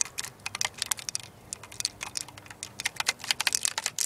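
Shaken can of ginger ale spraying soda out of a BB hole: a fast, irregular crackling and spitting of fizzing liquid.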